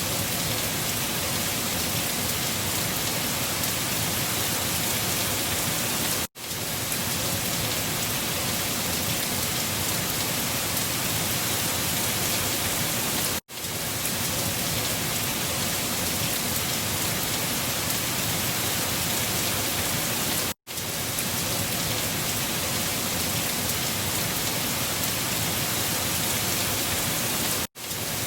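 Steady storm hiss, a wind-and-rain ambience recording, even and without any distinct events. It cuts out for a split second about every seven seconds and fades straight back in, as a short recording loops.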